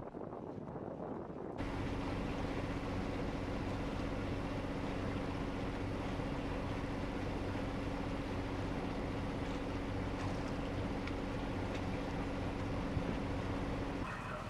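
A sailboat's engine running steadily while under way, a constant drone over the hiss of wind and water. It comes in abruptly about a second and a half in, replacing a more muffled rumble.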